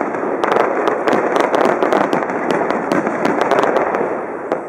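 A dense barrage of aerial firework shells: many overlapping bangs and crackles without pause, thinning slightly near the end.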